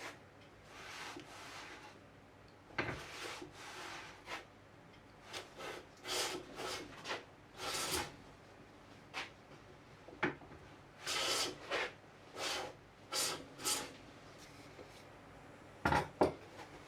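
Bench plane shaving a rough-cut wooden leg in a series of short and longer hissing strokes, with two sharp knocks near the end.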